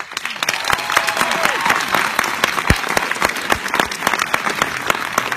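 Audience applause breaking out suddenly and loudly, a dense run of many hands clapping, with a few voices calling out in the first couple of seconds.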